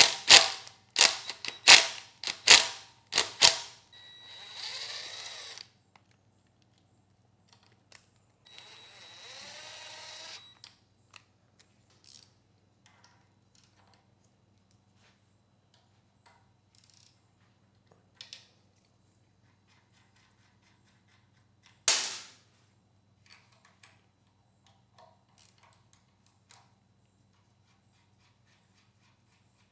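Cordless impact driver hammering bolts loose in a quick series of short bursts over the first three and a half seconds. It then spins freely twice for a couple of seconds each as loose bolts run out. There is one more short burst about 22 seconds in, and light clicks of parts being handled.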